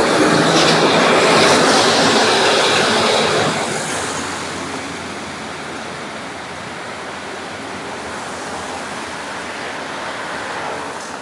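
Volvo Olympian double-decker bus's diesel engine running as it pulls away. The sound fades over the first few seconds as the bus draws off, leaving steady street traffic noise.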